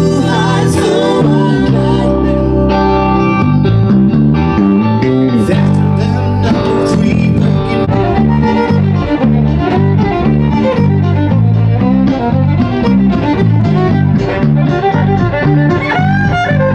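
A small band playing live: a violin carries the melody over a keyboard and an electric bass guitar.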